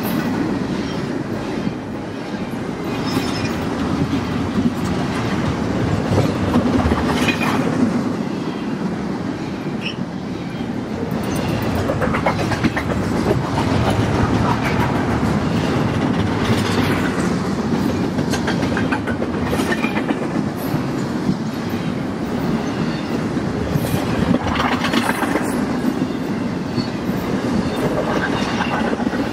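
Double-stack intermodal freight train of container-laden well cars rolling past: a steady rumble of steel wheels on rail, with short clicks recurring every few seconds.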